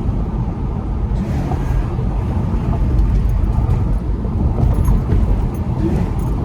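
Acura TL's V6 engine, fitted with a homemade cold air intake, running as the car drives, mixed with road noise: a loud, steady low rumble.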